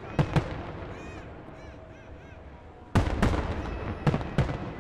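Aerial fireworks shells bursting in a series of sharp bangs: two in quick succession near the start, a rapid cluster about three seconds in, and two more near the end.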